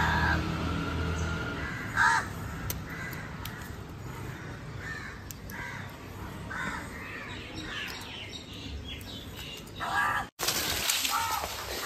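Crows cawing at intervals, with a louder caw about two seconds in and another around ten seconds.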